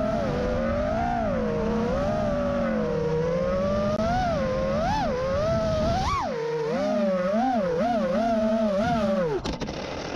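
FPV freestyle quadcopter's motors and propellers whining, the pitch rising and falling with each throttle punch. Near the end the whine winds down with a falling pitch as the quad lands and stops.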